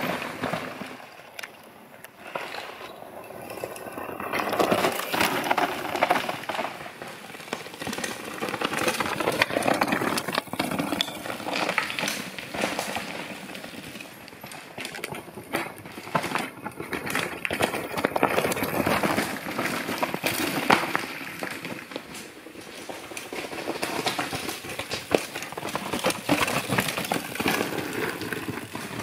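Mountain bike tyres crunching and clattering over loose rock, full of rapid crackling clicks, swelling and fading several times as riders come through.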